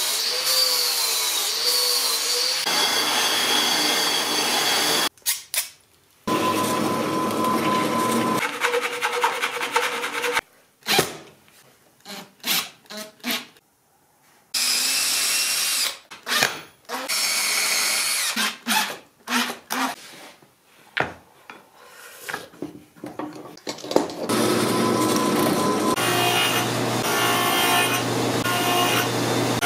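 Angle grinder cutting metal for the first five seconds or so, its pitch dropping as it bites and then holding steady. Short stop-start runs of power-tool noise with knocks and clicks between follow. From about 24 seconds in, a table saw runs steadily while small wooden blocks are fed through it.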